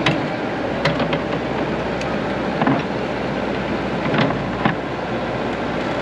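Mini excavator's diesel engine running close by as the boom and bucket are worked, a steady rumble with several short knocks.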